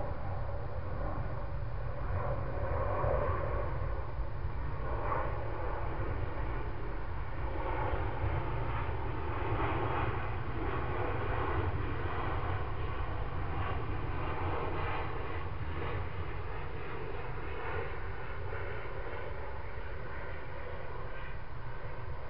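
Distant engine noise that swells and fades over about fifteen seconds, like something passing at a distance, over a steady low rumble.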